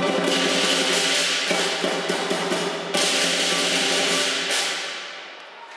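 Traditional Chinese lion dance percussion: a drum beating under crashing cymbals, with two big crashes nearly three seconds apart. The music dies away near the end.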